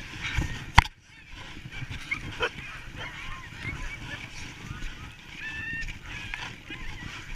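Harnessed Alaskan huskies of a sled team yelping and whining in many short, high calls, the restless noise of sled dogs waiting to run. A single sharp knock close to the microphone about a second in.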